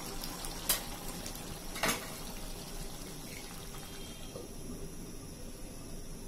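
Pot of bottle-gourd and chicken curry simmering, a steady bubbling hiss, with two short clicks a little over a second apart near the start.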